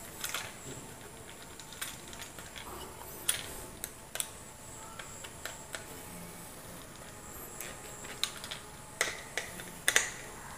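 Scattered light clicks and taps of a screwdriver and wire against a plastic switch board as a wire is fastened under the socket's terminal screw, with a cluster of louder clicks near the end.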